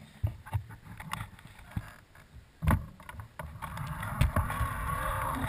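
Knocks and rubbing of a glove handling the camera, a louder knock about two and a half seconds in, then a rumbling travel noise that grows steadily as the camera starts moving along the rough dirt track.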